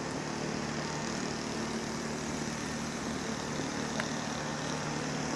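A steady engine hum with a low, even drone, and a single short click about four seconds in.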